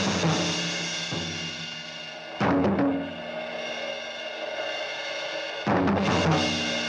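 Orchestral cartoon score: loud crashing chords with cymbal and drums, one at the start, another about two and a half seconds in and a third near the end, each left ringing as a held chord.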